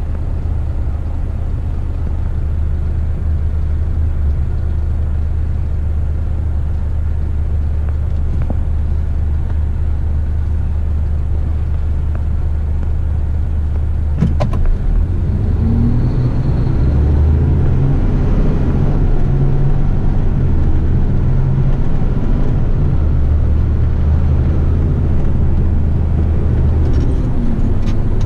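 Heavy rigid truck's diesel engine heard from the cab. It runs at a steady low idle for about the first half, then a sharp click comes about halfway through. After that the engine pulls away, its pitch rising and dropping several times as it accelerates.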